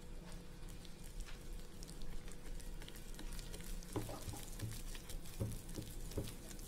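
Red silicone spatula stirring a thick, sticky cake batter of flour, oil and powdered sugar in a glass bowl: soft wet crackling and scraping. About four seconds in, a few dull knocks join it as the stirring goes on.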